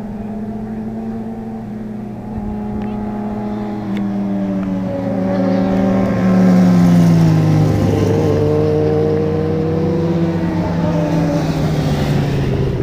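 Two racing sport motorcycles approaching under power, passing close through a corner about six seconds in with a drop in engine pitch, then accelerating away.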